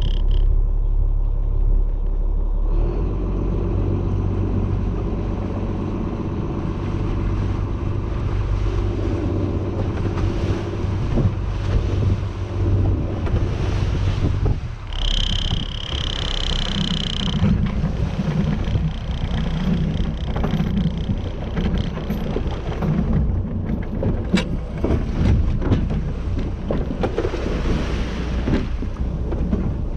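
Boat engine running steadily under way, a low rumble with wind on the microphone. A brief high-pitched tone sounds about halfway through, and the rumble turns choppier in the second half.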